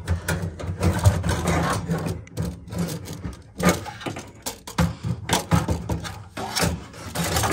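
Gas water heater's sheet-metal burner door and burner assembly clinking and scraping as they are pulled out of the combustion chamber, many irregular knocks and rattles over a steady low hum.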